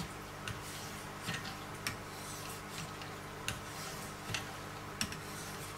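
Wicked Edge 1500-grit sharpening stones stroked along the edge of a Hogue EX-03 knife blade: a light scraping rub with several sharp ticks at uneven intervals as the stones meet the steel.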